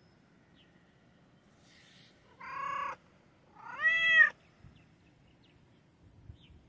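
Domestic cat meowing loudly twice, about a second apart. The second meow is louder and arches up and then down in pitch.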